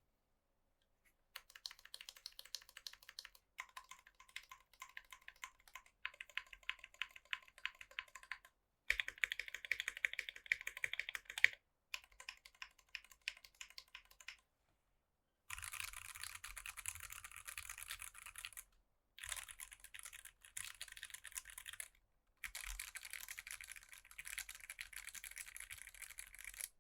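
Typing on a Tofu60 mechanical keyboard with stock, unlubed Durock Koala tactile switches in an aluminium plate under PBT keycaps: runs of key clacks in bursts with short pauses, growing denser in the second half.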